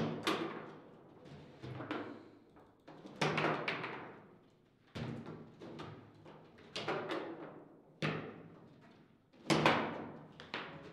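Table football play: sharp knocks of the ball struck by the rod figures and rebounding off the table walls, coming every second or so, each one ringing out briefly.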